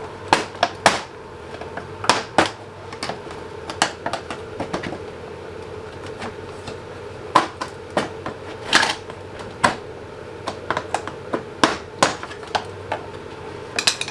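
Irregular sharp clicks and taps of hand tools working small plastic clips loose from a car bumper, over a steady hum.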